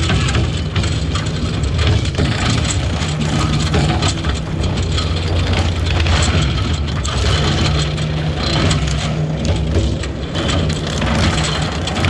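A heavy engine running steadily, with a dense crackling, rattling noise over it.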